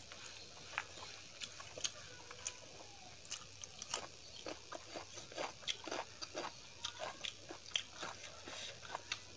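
Wet chewing and mouth smacking over a mouthful of rice and dal, with the squish of fingers mixing rice into dal. The sound is a run of short sticky clicks, sparse at first and much denser from about three seconds in.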